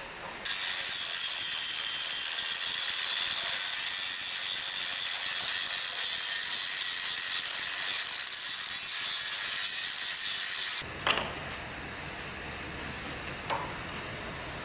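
Hand-held electric angle grinder with a flap disc grinding a small metal part clamped in a bench vise: a steady, high-pitched grinding that starts about half a second in and cuts off suddenly after about ten seconds. A few light metallic clinks follow as the tool and parts are set down on the steel bench.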